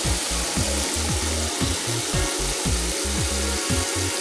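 Steady hiss of car-wash nozzles spraying foam, a cartoon sound effect, over background music with a steady beat.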